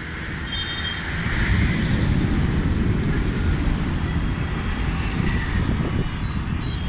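Road traffic on a bridge: motorcycles and a car passing, heard as a steady low rumble that grows louder about a second into the clip.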